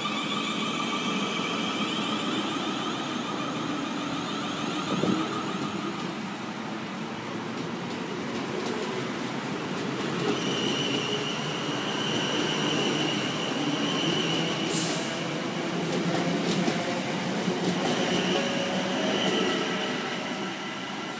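Class 450 Siemens Desiro electric multiple unit pulling away, its electric traction motors whining over a steady rumble of wheels on the rails. In the first few seconds the whine shifts through several tones; from about halfway a steady high tone, typical of wheel squeal, runs over the rumble.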